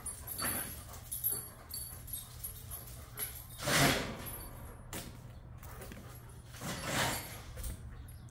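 Dogs at play making short vocal sounds, the two loudest about four and seven seconds in.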